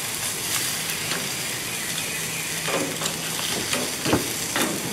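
Chicken drumsticks sizzling on a hot grill, a steady spitting hiss. A few short clicks in the second half come from metal tongs on the grate as the pieces are moved.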